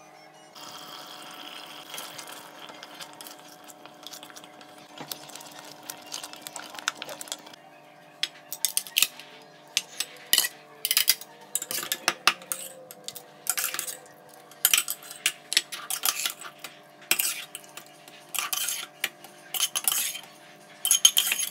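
A utensil scraping and clinking against a small metal strainer as cooked chicken is pressed and shredded in it. It starts as a soft, steady scraping, then turns into a quick, uneven run of sharp metal clinks from about a third of the way in.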